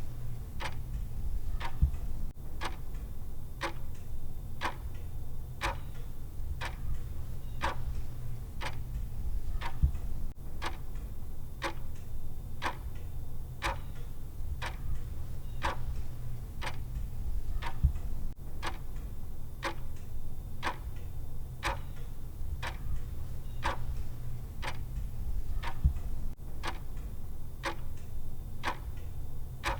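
Clock-style tick sound of a countdown timer: steady, evenly spaced ticks over a low steady hum.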